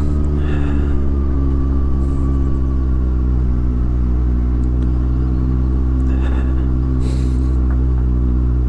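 Honda CBF600 motorcycle's inline-four engine running under way at a steady, low engine speed, the pitch hardly changing. A brief hiss comes about seven seconds in.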